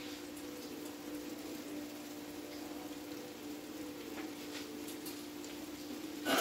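Chicken breast pieces sizzling in a frying pan, a faint steady crackle over a low, steady hum. A brief, louder noise comes right at the end.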